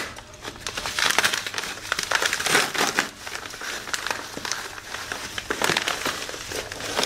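Packaging being handled, crinkling and rustling in irregular crackles.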